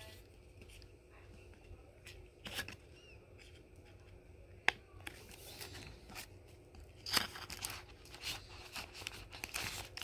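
Clear plastic nine-pocket binder sleeves crinkling in scattered bursts as baseball cards are slid into the pockets and the pages are handled. There is one sharp click about halfway through.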